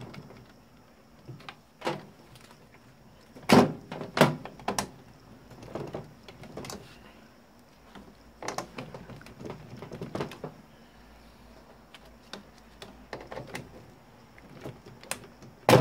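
Irregular hard plastic knocks and clunks from a broken electric roller foot massager as it is handled and plugged in to test it, several a few seconds apart, the loudest near the end.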